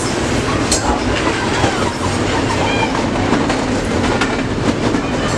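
Double-stack container freight train passing close at speed: the steady rumble of the well cars, with wheels clicking over the rail joints.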